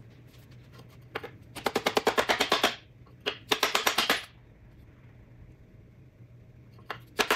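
Hammer beating on a wooden piece held against a piston to drive the piston and connecting rod out of the cylinder bore of a 1966 MG Midget engine block. Two quick runs of rapid blows, about ten a second, with single knocks before and between them and a few more near the end.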